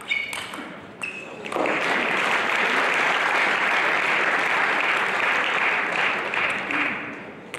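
Two sharp table tennis ball hits, then the audience applauding loudly for about five seconds before it dies away.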